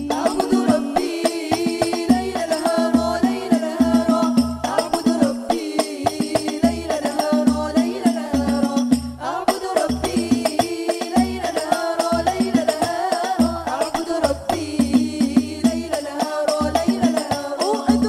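Hadroh al-banjari ensemble: a group of women singing an Arabic devotional song (sholawat) over hand-beaten terbang frame drums, with low drum strokes and sharp slaps keeping a steady rhythm.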